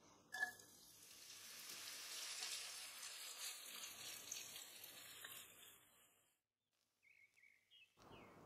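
Chopped onion dropped into hot cooking oil in a pot, with a short knock as it lands, then a steady sizzle of onion frying while it is stirred with a spatula. The sizzle cuts off abruptly about six seconds in.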